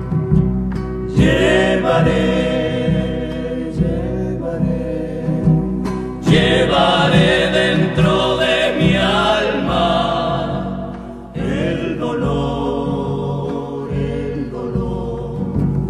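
Argentine folk song: a group of male voices singing in harmony over strummed acoustic guitar, the voices coming in about a second in after a few guitar strums.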